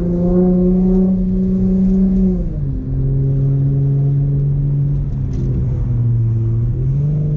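Infiniti G35's 3.5-litre V6 engine pulling under way, heard from inside the cabin: its note climbs slowly, then drops sharply about two and a half seconds in as it shifts up a gear, and holds steady at lower revs.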